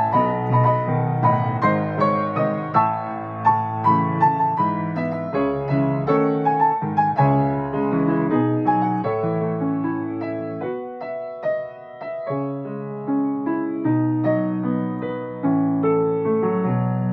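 Grand piano played solo: a continuous melody over chords, note after note struck and ringing. It grows softer about two-thirds of the way through, then builds up again near the end.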